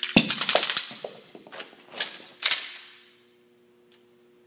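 Semi-automatic pistol's slide and magazine worked by hand in a Type 3 malfunction (double-feed) clearance: a loud clack, a quick run of rattling clicks, then two sharp metallic clacks about half a second apart.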